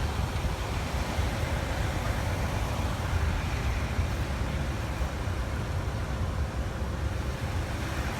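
Steady low rumble of a moving car on the road.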